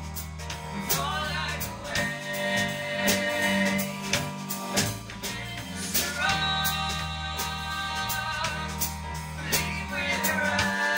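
Small live band playing a soulful song: a woman sings long held phrases over a Roland keyboard, a Mapex drum kit with cymbals and an electric guitar.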